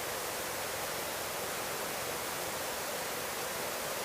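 Steady, even hiss of a helicopter's headset intercom audio in flight.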